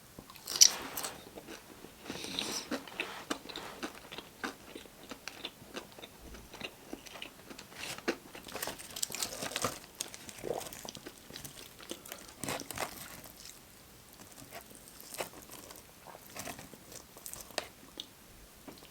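Close-up eating sounds: crunchy bites into crispy Popeyes fried chicken and chewing, with many short crackling crunches and the loudest bite about half a second in.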